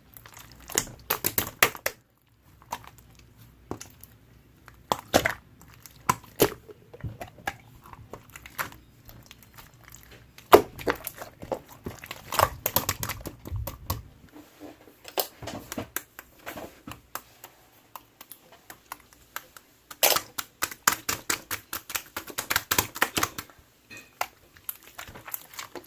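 Slime being squished, stretched and pressed by hand, making bursts of fast, wet clicking and crackling pops with short quiet pauses between handfuls.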